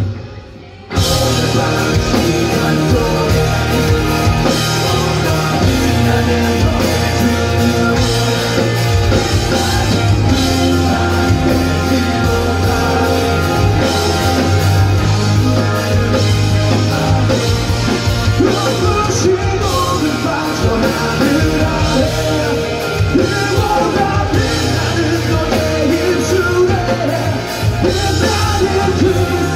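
Live rock band playing at full volume, with electric guitars, bass guitar and a drum kit behind a lead vocalist singing and shouting into a microphone. The music breaks off for about a second at the very start, then the whole band comes back in.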